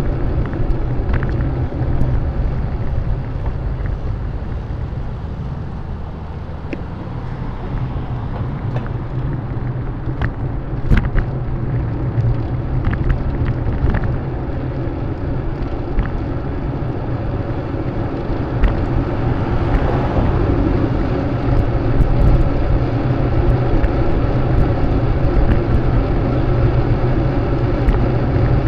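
Steady road and traffic rumble heard while cycling along a city bike route, with a few sharp clicks along the way.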